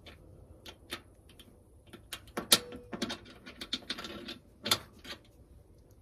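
Brass RV propane quick-connect coupling clicking and rattling as the hose plug is worked in with the collar held back: a string of small metal clicks, with two louder ones about two and a half seconds in and just before five seconds.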